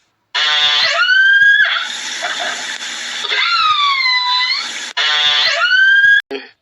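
Three high, drawn-out animal calls: the first and last rise quickly from a rough, pulsing start to a held tone, and the middle one dips in pitch and rises again.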